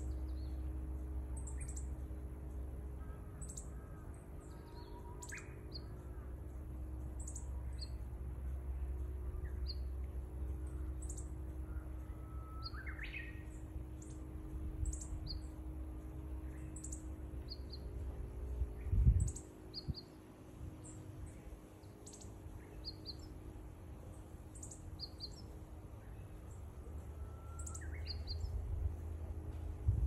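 Small birds chirping: many short, high-pitched chirps repeating, with a louder rising call about thirteen seconds in. A low hum runs underneath, and a single loud low thump of wind or handling on the microphone comes about two-thirds of the way through.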